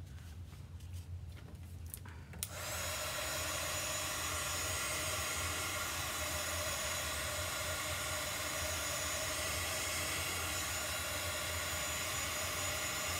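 Small handheld blow dryer switched on about two and a half seconds in and running steadily, drying wet chalk paste.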